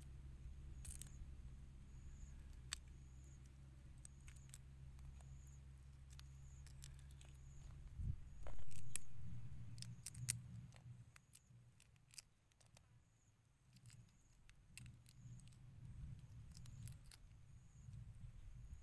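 Raw shrimp being peeled and deheaded by hand over a woven bamboo tray: small sharp clicks and crackles of shell snapping off, at irregular moments. A low rumble runs underneath, with one louder low bump a little before the middle that fades over a couple of seconds.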